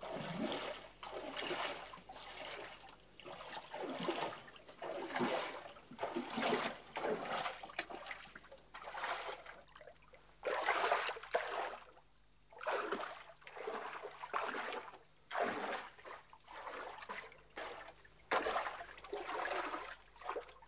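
Shallow water in a foggara, an underground irrigation aqueduct, splashing and sloshing as a man wades in it and works at it with his hands, in uneven surges about once a second.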